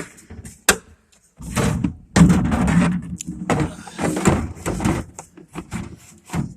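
Steel drawers of a Husky top-and-bottom toolbox sliding on their runners and knocking shut, with tools rattling inside. Two sharp knocks come first, then longer sliding runs with more knocks and scrapes.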